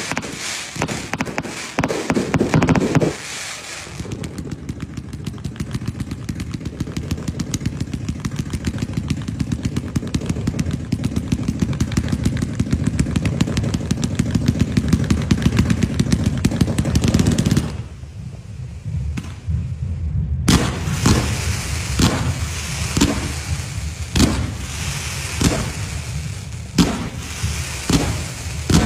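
Fireworks cakes firing: a rapid, steady barrage of launches for about fifteen seconds, then a short lull, then separate sharp bangs every second or so.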